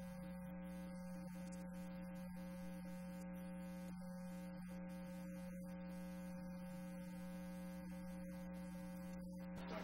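Steady electrical hum with a buzzing stack of overtones, unchanging throughout.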